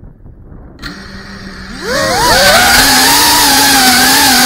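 FPV quadcopter's brushless motors arming with a low steady hum about a second in, then spinning up with a rising whine near the two-second mark and holding a loud, steady whine as the drone lifts off.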